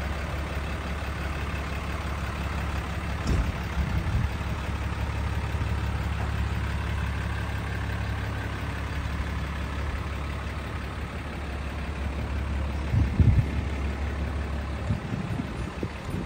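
Cummins 6.7 L turbo diesel of a Ford F750 bucket truck idling with a steady low hum. A few short low thumps come about three seconds in, and a louder cluster comes near 13 seconds.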